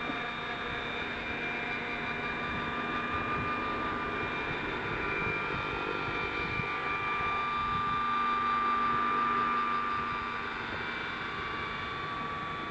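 Electric-powered Hughes/Schweizer 300 scale RC helicopter in flight: a steady high whine from its electric motor and rotors. It grows louder as the helicopter comes close, is loudest about eight to ten seconds in, then eases as it climbs away.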